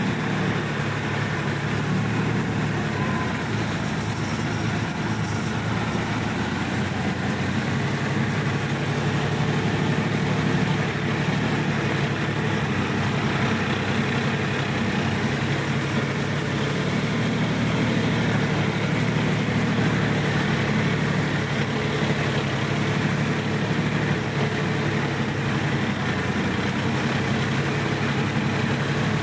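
Sonalika DI 50 RX tractor's diesel engine running steadily as the tractor drives through a wet paddy field, heard close up from the driver's seat.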